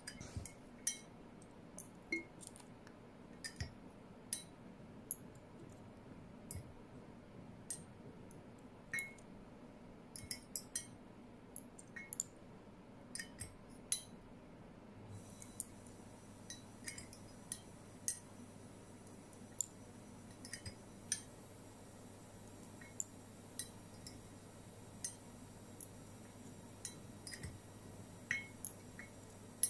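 Faint, irregular small clinks and ticks of a dropper knocking against a glass jar and the mouth of a small brown glass bottle as liquid soap is transferred drop by drop. A faint steady hum comes in about halfway.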